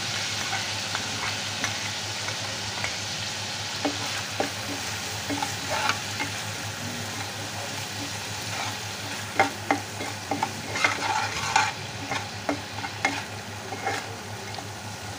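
Spice masala frying and sizzling in hot mustard oil in a metal kadhai while a metal spatula stirs it, scraping and clicking against the pan. The scrapes come more often in the second half.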